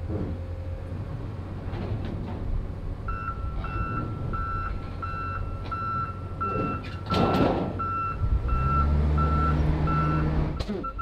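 Loader engine running with its backup alarm beeping steadily, starting about three seconds in. There is a short burst of noise about seven seconds in, and near the end the engine runs louder as it works.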